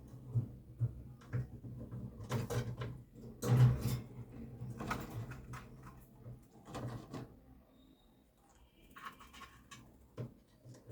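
Indian ringneck parrot feeding on mango: irregular small clicks and knocks of beak and feet, with a louder burst of them about three and a half seconds in.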